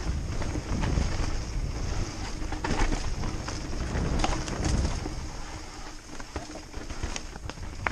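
Mountain bike descending a rocky dirt forest trail: steady rumble of tyres and wind on the camera, with frequent sharp knocks and rattles from the bike over rocks and roots.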